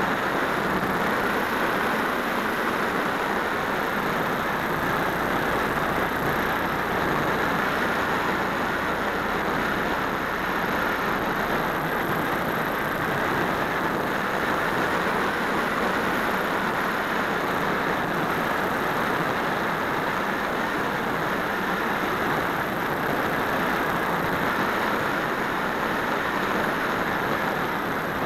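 Steady rush of wind over the microphone of a keychain camera mounted on the wing of a Phoenix 1600 electric RC glider in flight.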